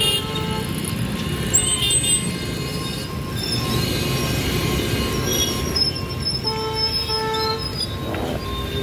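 Road traffic crossing a level crossing: car and motorcycle engines and tyres hissing on a wet road, over steady high-pitched tones. A vehicle horn sounds about six and a half seconds in and again near the end.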